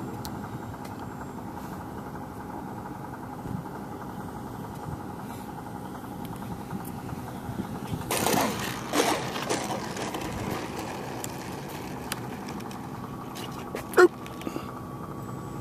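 Model T-28 airplane's motor droning steadily in flight. About eight seconds in it grows louder and drops in pitch as it passes, and a short, sharp loud sound comes near the end.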